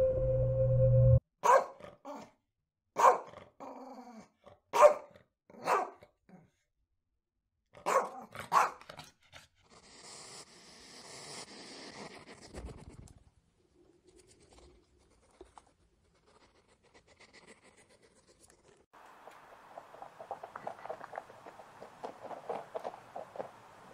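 A dog barking: about six loud, sharp barks in the first nine seconds, some in quick pairs. Before the barks, a steady whale call cuts off about a second in; after them come a short hissing noise and, from near the end, a run of rapid soft crackles.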